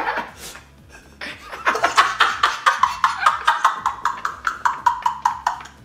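Men laughing hard, a long run of quick, even 'ha-ha' pulses, about five a second, starting about a second in.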